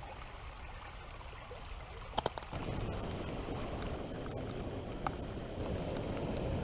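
A shallow creek running over stones in a steady rush. About two seconds in come two light clicks, and just after, the rush jumps suddenly louder and fuller; one more small click follows a few seconds later.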